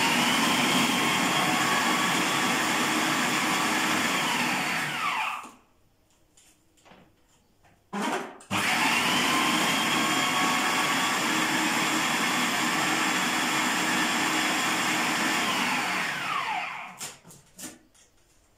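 Electric food processor chopping a green garlic mixture in two runs: about five seconds, a short pause with a click, then about eight seconds. Each run spins up with a rising whine and winds down with a falling whine. A few clicks follow near the end.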